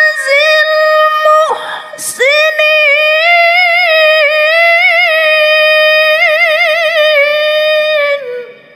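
A woman chanting the Quran in melodic tilawah style through a microphone: after a short break about a second and a half in, she holds one long high note for about six seconds with wavering ornaments, letting it fall in pitch and stop near the end.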